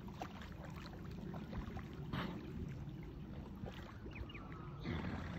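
Water sloshing and lapping as a horse wades through a muddy dam, a low, steady churning with small splashes.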